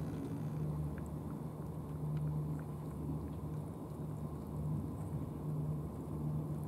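Steady low hum of an idling engine, swelling and easing slightly, with a few faint soft clicks of a cat chewing wet food.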